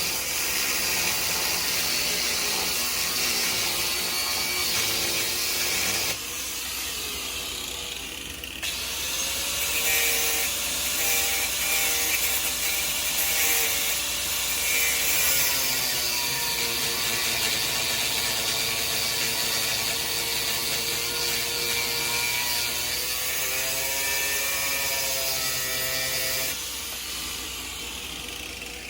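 A power grinder cutting through corroded, rusted bolts on a wood-burning furnace, a steady hiss of grinding metal. The motor's pitch sags and recovers as it bears on the steel. It drops in level abruptly a few times.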